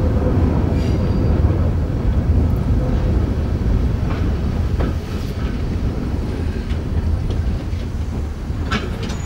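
Metre-gauge train of the Ferrovia Mesolcinese rolling along the track, heard from its rear cab: a steady low rumble of wheels on rail with a few sharp clicks, growing gradually quieter toward the end.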